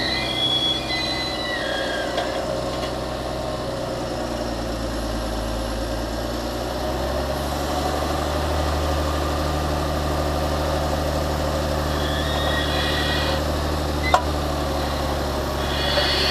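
Large Fendt Vario tractor diesel engine running steadily while pushing silage maize, with a high whine that comes and goes. About seven seconds in, the engine note changes and grows stronger. A single sharp click comes near the end.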